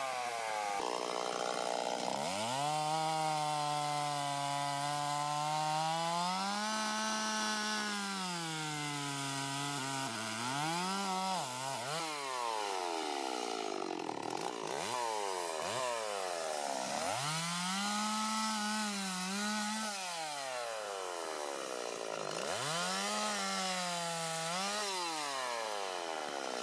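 Chainsaw cutting into a tree trunk to take off billets. The engine is held at a steady pitch for several seconds while the chain is in the wood, then repeatedly drops and revs back up between and during cuts.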